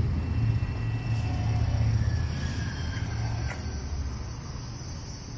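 Low rumble of a passing motor vehicle, fading steadily as it moves away.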